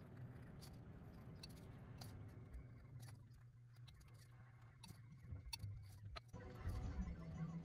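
Carving knife cutting into a thin wooden board, a scatter of faint crisp clicks and scrapes as the blade slices the outline.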